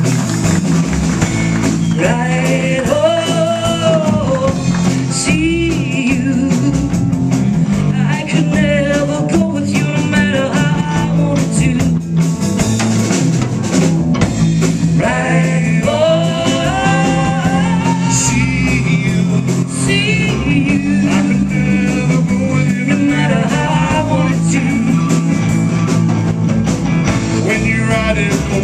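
Live blues band playing: a woman singing over electric guitar, bass guitar and drum kit.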